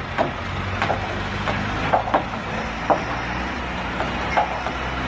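Steady low machine hum, like an engine running, with irregular sharp knocks every half second or so, each ringing briefly.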